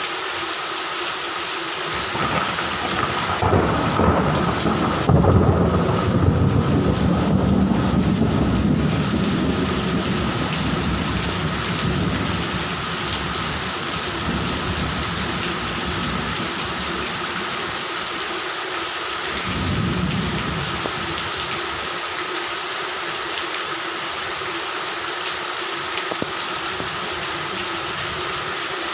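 Steady rain with thunder: a rumble builds a few seconds in, peaks loudly and rolls away over several seconds, and a second, softer roll of thunder comes about two-thirds of the way through.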